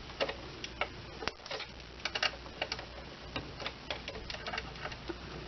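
Small screwdriver clicking against the plate screws of a Brother CS6000i sewing machine as they are worked loose: a scatter of irregular light clicks, several a second. The screws are stubborn, put in too tight.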